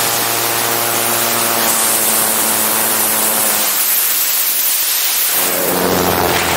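Autogyro engine running steadily in flight, heard under heavy rushing wind on an outside-mounted camera. The engine tone drops out behind the wind noise for about a second and a half midway, then comes back at a slightly lower pitch.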